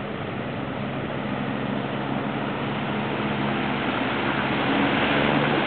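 Solar-powered electric race boat running past at sprint speed: the rush and hiss of its hull and spray grows steadily louder as it nears, with a faint low hum underneath.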